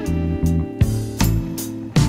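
Background music led by strummed guitar over a bass line, with a chord struck every half second or so.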